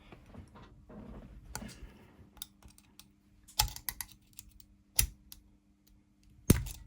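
Small metal clicks and scrapes as a replacement spring is worked into a brass door lever handle's mechanism. A few sharper clicks come about three and a half and five seconds in, and the loudest near the end as the spring snaps into place.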